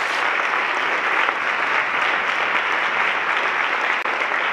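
An audience applauding steadily, the clapping of many hands.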